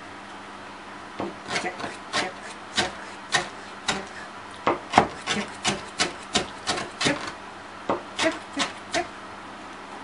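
Kitchen knife chopping pickles on a plastic cutting board: uneven taps, about three a second with short pauses, starting about a second in and stopping about a second before the end.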